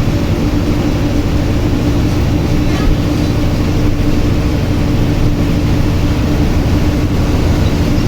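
Steady rumble of a moving vehicle heard from inside, with a constant low hum running under it.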